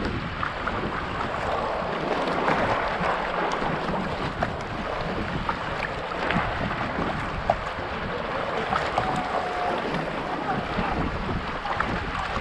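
Sea kayak paddling: the paddle blades splashing and water sloshing and trickling along the hull, with small irregular splashes throughout. Wind rumbles on the microphone underneath.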